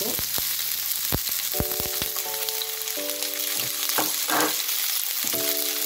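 Diced red bell pepper frying in hot olive oil in a paella pan: a steady sizzle with a few sharp pops in the first two seconds.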